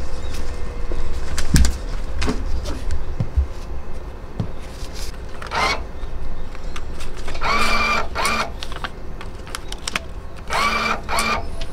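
Ticket machine's banknote acceptor whirring twice, each for under a second, as a 1,000-won note is fed into its slot.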